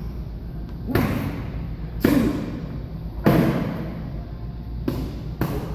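Five sharp smacks of leather focus mitts striking against padded boxing gloves and forearm guards: three heavy hits about a second apart, then two lighter ones close together near the end, each with a short echo.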